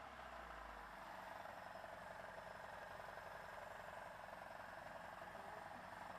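VAZ-2104 engine idling with a fast, steady metallic ticking from a loose crankshaft pulley ratchet nut, a knock easily mistaken for a piston pin or connecting-rod knock.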